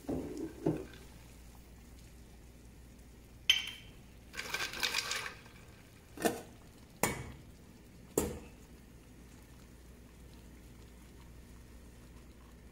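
Kitchen utensil clatter: a handful of sharp clinks and knocks of a spoon and dishes, with a short rattle about four to five seconds in, then only a faint steady background.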